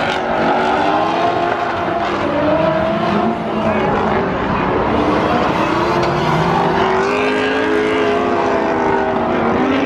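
Drift car engine revving up and down over and over, its pitch rising and falling every second or two, over a steady haze of noise.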